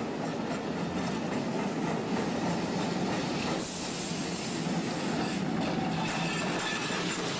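Vintage electric streetcar approaching on street-embedded rails and passing close by, its steel wheels rumbling on the track. A short burst of hiss comes about halfway through, and a faint high whine near the end.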